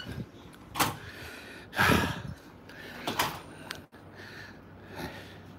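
A few separate soft knocks and rustles, the loudest about two seconds in: a glass door swinging shut and the phone being carried through the doorway.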